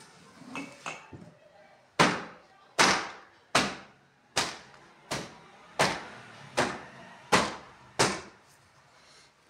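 A dusting cloth slapped against a wooden wardrobe door: nine sharp, evenly spaced slaps about three quarters of a second apart, starting about two seconds in.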